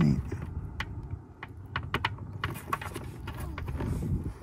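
Irregular small plastic clicks and scrapes as gloved hands twist the LED bulb's retaining ring into the back of a Mercedes W126 headlight housing, with a louder bump at the very start.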